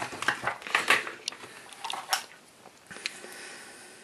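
Small metal airsoft gearbox parts and screws being handled on a workbench: a scatter of sharp metallic clicks and ticks, most of them in the first second, then a few spaced out.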